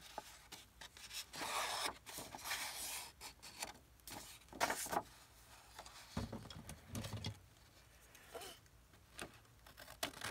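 A large sheet of old paper rustling and crinkling as it is handled and folded over, with a couple of low bumps in the middle. Near the end, scissors begin snipping into the paper.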